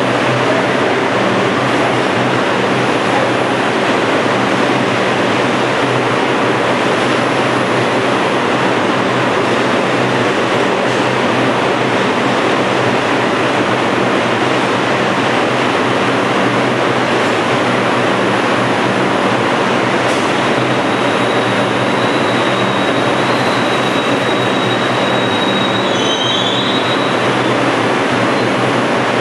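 Subway station din around a standing R142 train: a steady loud rush with a low hum. A faint high squeal comes in about two-thirds of the way through.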